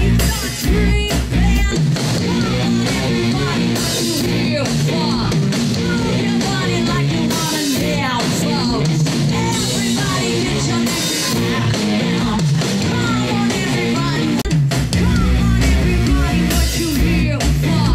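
Live rock band playing in a club: female lead vocal over a Stratocaster electric guitar, bass guitar and drum kit. About a second in the sound switches to a Canon DM-100 camera microphone with automatic gain control, thin, with squashed dynamics, distorted drums and little low end; about 15 s in it switches back to a Shure MV88, with full, deep bass and clearer highs.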